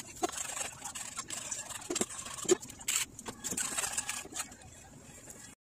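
A utensil stirring sauce in a hammered aluminium yukihira pan, clinking and knocking against the metal at irregular moments, the loudest knock about halfway through, over a steady high hiss.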